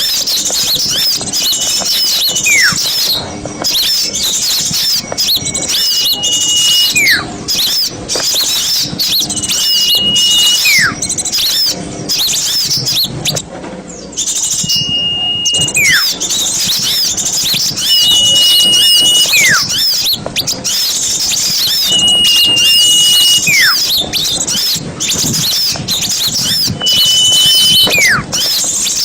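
Bird-lure recording of many small songbirds calling together: dense, quick high chirps throughout, and about every four seconds a loud held whistle that drops away in a falling slur.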